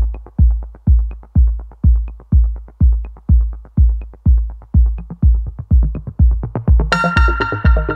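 Electronic background music with a heavy bass drum beating about twice a second and light ticks between; a higher synth melody comes in near the end.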